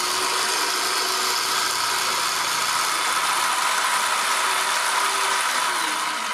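Homemade 12V DC drill press running steadily with a whine while the bit is drawn up out of a hole in a wooden strip. Near the end its pitch starts to fall as the motor winds down.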